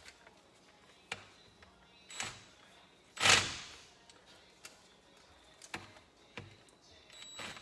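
Tools and parts being handled on a metal workbench: scattered clicks and clanks, the loudest a sharp clank with a short ring about three seconds in, as a cordless driver is picked up and fitted onto a bolt.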